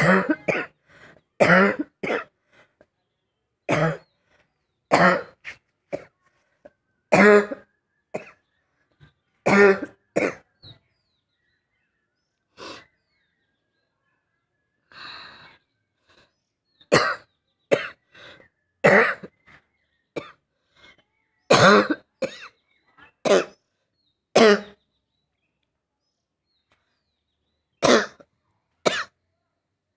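A person coughing on purpose, over and over: short, sharp coughs, single or in quick pairs, every second or two. A quieter stretch in the middle is broken only by one softer, drawn-out breath. The person already has a cold and a cough.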